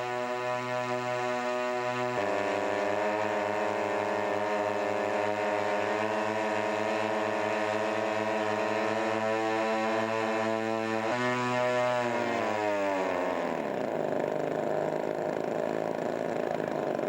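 Model aircraft engine running with a steady buzzing drone. Its pitch drops a step about two seconds in and jumps back up about eleven seconds in, then falls away into a rougher noise over the next couple of seconds.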